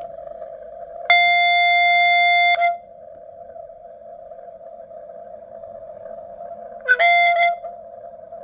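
Audio of a Xiegu X6100 transceiver in CW mode: a steady hiss of band noise heard through the narrow CW filter. A loud steady beep lasts about a second and a half, starting about a second in, and a shorter one comes near the end.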